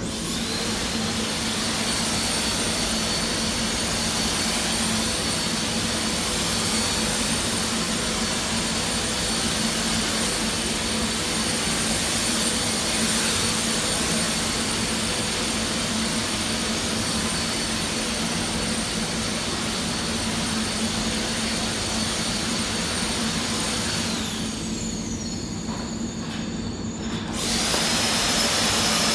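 High-speed electric blower motor of a disinfectant fogger running with a steady rushing whine. It spins up at the start, winds down with a falling whine about 24 seconds in, and starts again near the end.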